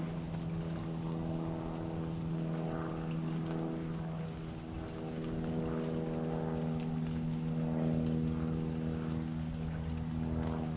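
Propeller airplane droning overhead: a steady engine hum that holds one pitch.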